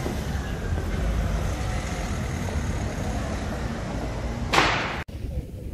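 Street ambience with a steady low traffic rumble. A sudden, short, loud burst comes about four and a half seconds in, and the sound cuts off abruptly just after it.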